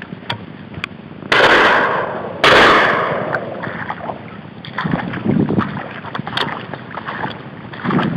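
Two shotgun shots from a double-barrelled shotgun, about a second apart, each sharp and loud with a short fading echo. Afterwards there is irregular rustling and splashing of footsteps through wet marsh grass and shallow water.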